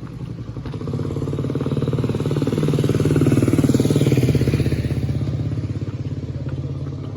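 A motor vehicle's engine passing close by: it grows louder to a peak about three and a half seconds in, then fades away.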